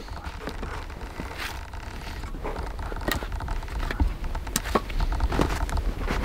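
Split firewood logs being picked from a woodpile and gathered in the arms: wood scraping and rustling against a wool coat, with a few sharp wooden knocks in the second half.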